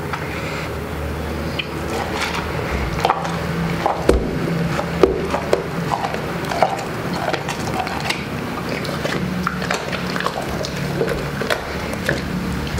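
A large dog chewing a whole roast chicken, crunching through the bones in a run of irregular sharp cracks.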